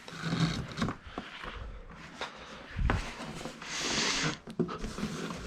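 Shipping packaging rustling and crinkling as a bike frame is pulled from its box, with a few light knocks and clicks from handling. The loudest rustle comes about four seconds in.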